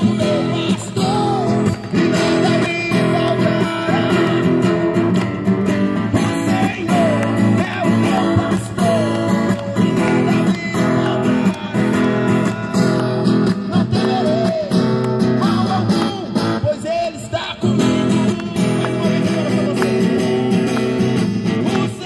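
A song: a voice singing over a strummed acoustic guitar, played without a break.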